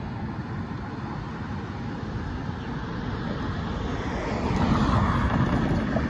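A car approaching and driving over the railroad crossing, its tyre and engine noise growing louder about four to five seconds in, over a steady background rumble of road traffic.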